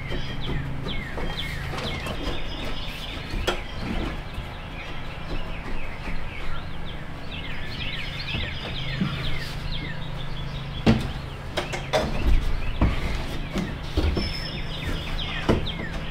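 Many small birds chirping over a low steady hum, with several sharp knocks in the second half.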